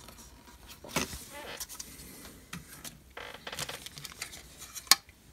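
Plastic model-kit sprues with molded sails being handled and shifted against each other and their plastic bag: scattered light clicks and rustles, with one sharp click near the end.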